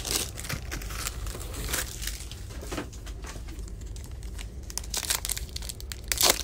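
Foil wrapper of a 2018 Optic football card pack crinkling and tearing as it is handled and opened by hand, in a run of short crackles, loudest about five seconds in and near the end.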